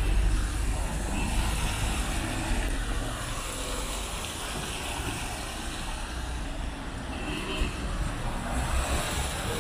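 Road traffic on a wet street: a steady hiss with a low rumble from passing cars.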